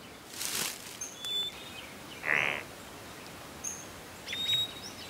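Forest ambience: scattered short, high bird chirps and a few soft swishing rustles, each about half a second long.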